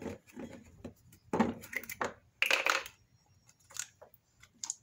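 Handling noises: plastic crinkling and rustling in a few short irregular bursts, with light clicks later on, as a plastic oil funnel is worked into the fill hole.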